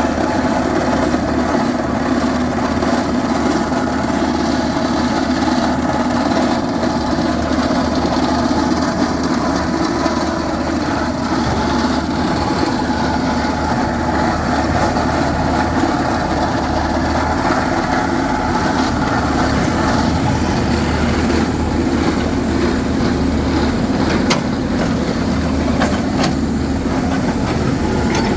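Rock-drilling construction machine's engine running steadily and loudly without let-up.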